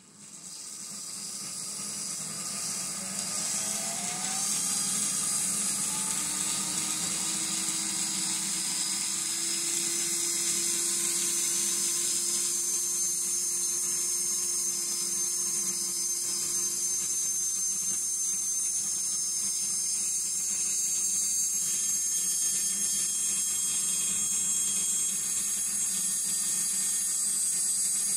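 Model diesel locomotive's small electric motor whining as it spins up slowly under the power pack's momentum setting, its pitch rising over the first few seconds and then holding steady at speed.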